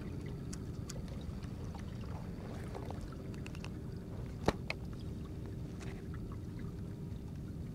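Steady low rumble aboard a fishing kayak on the water, with scattered light clicks from the baitcasting reel and rod as a lure is worked, and one sharper click about halfway through.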